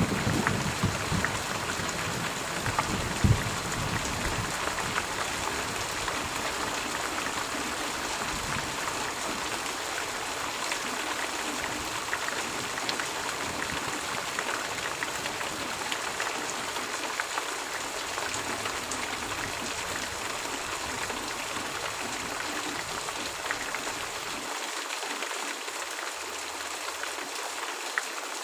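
Steady heavy rain, an even dense hiss of drops. A low rumble under it in the first several seconds dies away.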